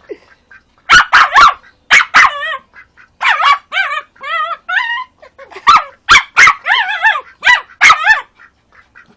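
A dog barking in short, sharp barks, mixed with wavering, warbling yelps.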